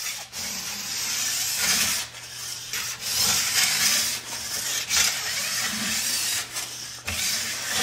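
Fine file rasping along the steel side edge of a ski in repeated back-and-forth strokes, about a second each, with brief pauses between them, roughly seven strokes in all.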